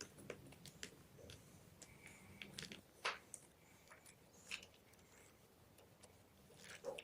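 Gym chalk crunching in scattered sharp cracks and soft crackles, the loudest crack about three seconds in.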